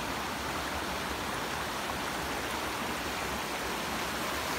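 Shallow creek running fast over rocks: a steady, even rush of water.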